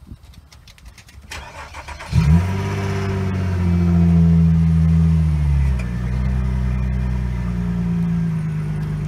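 Car engine started about two seconds in, running a little higher for a couple of seconds, then settling to a steady idle.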